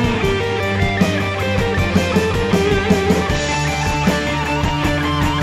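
Instrumental melodic rock/metal recording: electric guitar playing held melodic notes over bass, keyboards and a steady drum beat.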